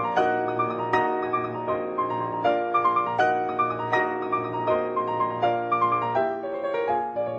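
Classical piano music: chords struck at a steady, even pulse, each ringing on into the next.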